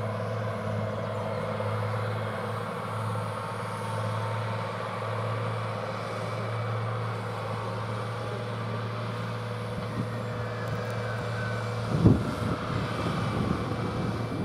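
Tractor engine running at a steady pitch as it pulls a loaded silage wagon across the field. Near the end a short burst of low rumbling thumps rises over it.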